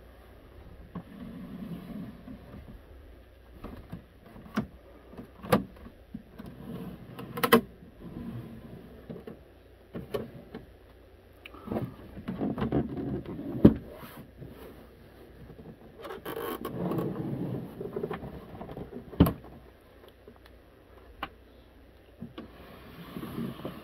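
Handling noises from the plastic case of a Radio Shack TRS-80 Model 4P computer as it is felt over and turned on a desk: scattered clicks and knocks, two of them sharper than the rest, with stretches of scraping and rubbing.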